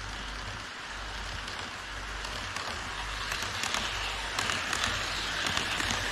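HO-scale model E5 series shinkansen running on KATO Unitrack: the wheels roll along the rails with a steady hiss that grows louder as the train draws near and passes close. Quick clicks come in about halfway through, as the wheels cross the rail joints.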